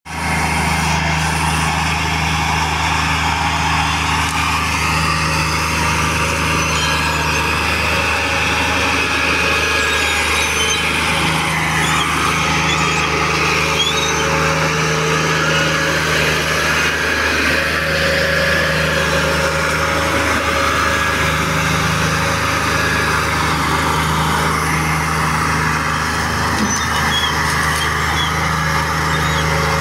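Fiat 480 tractor's three-cylinder diesel engine running steadily while hitched to a trolley heavily loaded with sugarcane.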